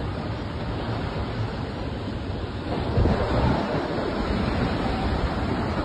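Heavy rain pouring in a strong gusting wind, with the wind buffeting the microphone. The noise grows louder about three seconds in.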